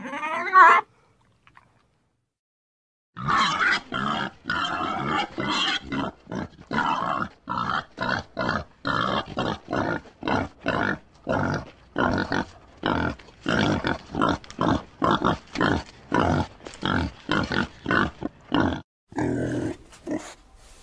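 A pig grunting in a long rapid series of short grunts, about two to three a second, starting about three seconds in after a brief pause. A short, loud, high cry is heard at the very start.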